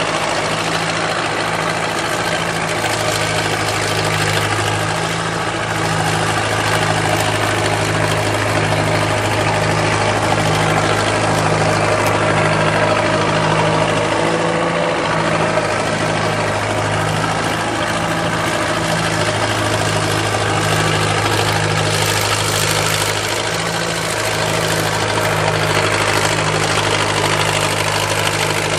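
Backhoe engine running steadily, with a low, even pulsing; its pitch sags briefly around the middle and then recovers.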